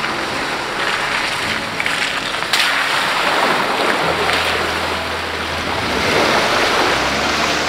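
Off-road vehicle driving through trail mud holes: a steady rush of splashing water and tyre noise, with one knock about two and a half seconds in and a low engine hum from about four seconds in.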